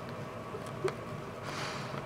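Sun conure moving about inside a paper microwave-popcorn bag: a single small click of popcorn a little under a second in, then a faint rustle of the bag's paper near the end.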